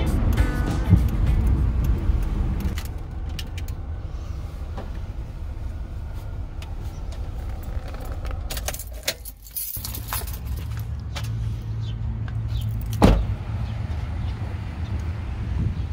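Car engine running, heard from inside the cabin. About halfway through, keys jangle at the ignition as the engine is switched off. A single loud thump comes a few seconds later.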